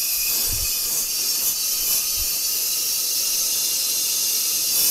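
Compressed air hissing steadily through a trigger tire inflator and locking air chuck into a small mower caster tire, while the tire's bead is pressed down to seal on the rim. The hiss starts and stops abruptly as the trigger is squeezed and released.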